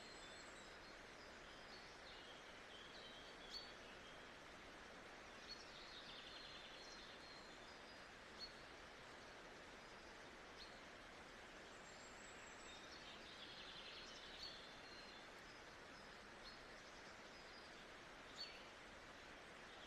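Faint nature ambience: small birds chirping in scattered bursts over a steady hiss of background noise, with a few brief sharp clicks.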